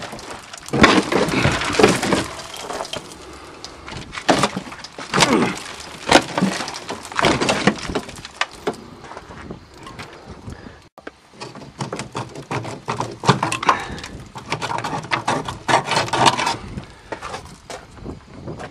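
Irregular metal bangs, clanks and scraping as a rusty fuel tank is worked loose from the underside of a 1982 Toyota Cressida. The knocks come in clusters, with a brief gap about eleven seconds in.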